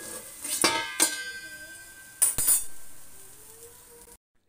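Metal lid clinking down onto a metal kadhai, three clinks in the first two and a half seconds, each followed by a metallic ring that fades slowly. The sound cuts off abruptly near the end.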